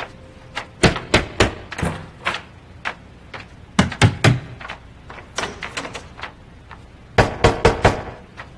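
Knocking and banging on a hard surface, in several runs of quick raps with short gaps between them.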